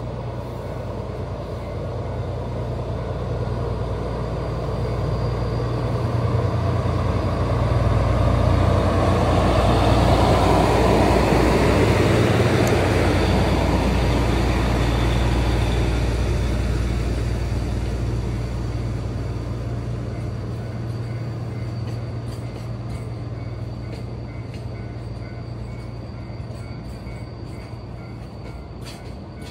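DF200 diesel-electric locomotive passing with a container freight train: the low diesel engine drone swells to its loudest about ten seconds in as the locomotive goes by. The container wagons then roll past, the rolling noise slowly fading.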